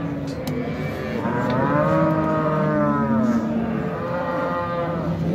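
Cattle mooing: two long moos, the first starting about a second in and the second following close behind, each rising and then falling in pitch, with more lowing from other cattle underneath.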